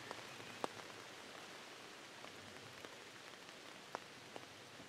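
Light rain: a faint, steady hiss with a few sharper drops ticking now and then, the loudest about half a second in and again near four seconds.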